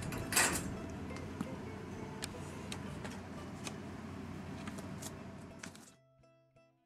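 Metal clicks and rattles of a wire pet cage's door being handled, with a loud click at the start and another about half a second in, over steady room noise. The noise fades out about six seconds in, and quiet plucked-string music begins.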